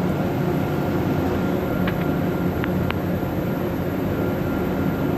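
Steady mechanical drone with a low hum, such as fans or machinery running near an electrical panel. A few faint clicks come about two to three seconds in.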